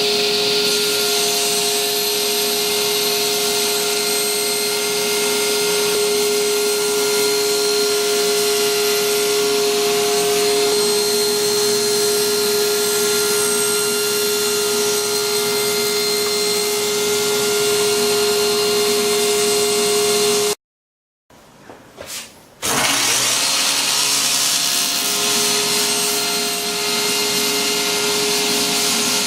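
Table saw running at full speed with a steady whine, as it cuts the slot in a new crosscut sled. The sound cuts off abruptly about twenty seconds in and, after a short break, the saw starts up again and runs on.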